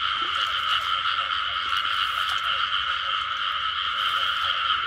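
Dense chorus of many frogs calling at once, a continuous din with no break: a breeding chorus after the season's first rains.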